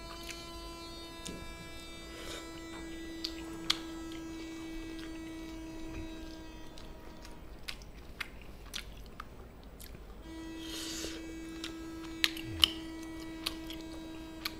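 A person chewing and biting food, quiet, with scattered small clicks. Under it a steady electrical hum drops out for a few seconds midway.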